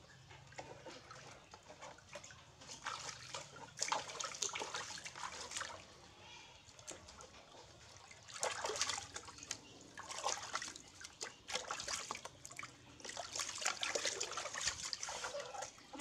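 Water splashing and sloshing in a plastic basin as a baby monkey is washed in it by hand, in irregular bursts, loudest about halfway through and again near the end.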